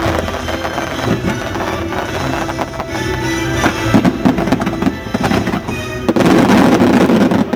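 Fireworks bursting over loud music from the show's sound system, many sharp bangs in quick succession. About six seconds in, a dense barrage of bursts and crackle takes over, cutting off abruptly at the end.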